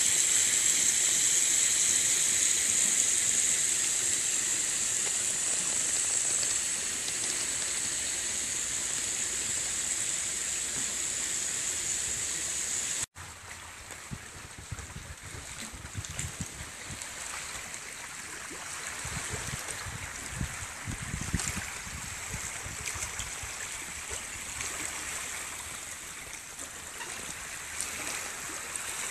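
A hose jet spraying water onto wet pavement, a steady hiss. It cuts off abruptly about thirteen seconds in, leaving quieter outdoor noise with scattered low rumbles.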